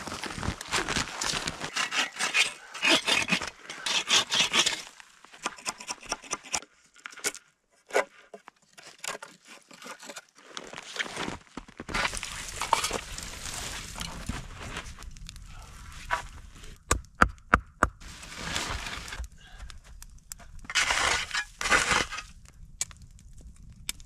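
Crunching, scraping and crinkling as a lumpy, snowy bed site is worked over by hand to level it, in irregular bursts with quiet gaps. A quick run of sharp snaps comes about two-thirds of the way through.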